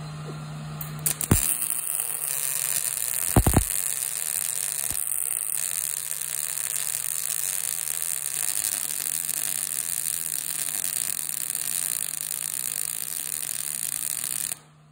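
Wire-feed welding arc running a bead along a butt joint in steel flat bar: a steady hiss that starts about a second in with two sharp pops as the arc strikes, and cuts off abruptly just before the end. A steady hum is heard before the arc starts.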